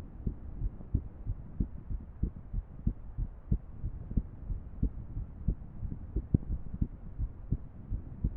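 A woman's heart sounds with an irregular rhythm: low, dull beats, about three a second and unevenly spaced.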